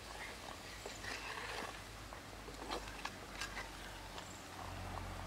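Scattered light clicks and scrapes of a wooden spatula stirring food in a clay pot, over a faint steady low hum.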